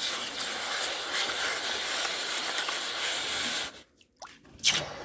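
Hot steel cleaver blade hissing and sizzling as it is quenched in a bucket of water to harden it. The hiss cuts off abruptly about three and a half seconds in, and a single sharp click follows near the end.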